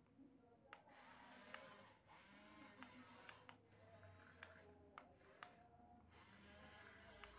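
Near silence: faint room tone with a few faint scattered clicks.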